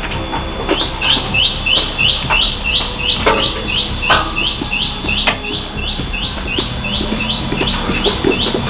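A bird chirping over and over in a quick, very even rhythm, about three short high chirps a second, starting about a second in, with a few scattered knocks and clatters.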